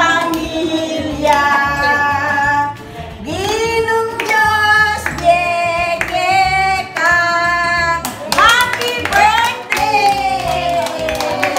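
Singing of a birthday song, with hands clapping along; the claps come thickest about eight to ten seconds in.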